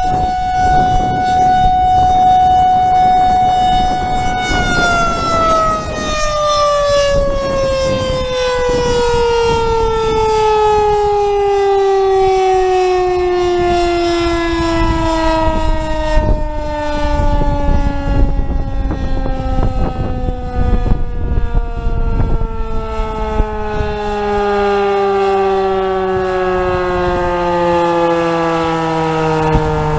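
Outdoor tornado warning siren sounding a steady tone, then about four seconds in its pitch begins a long, slow fall as the siren winds down at the end of its test.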